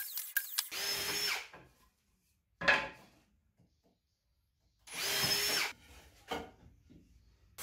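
Handheld drill running in short runs of about a second each, drilling into wooden bed slats, with a steady high whine. There are two main runs and a brief one between them, then a single knock near the end.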